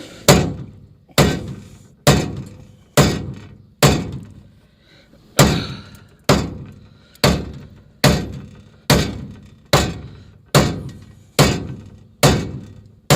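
Hammer striking a rust-frozen steel trailer-hitch ball mount stuck in its receiver, about fifteen steady blows a little under one a second with a brief pause near the middle, each blow ringing out briefly. The blows are meant to break the rust loose so the hitch can be driven out.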